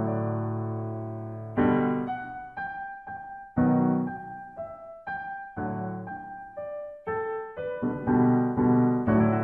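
Background piano music. A held chord fades out, then a slow run of single notes follows, and near the end repeated chords come in.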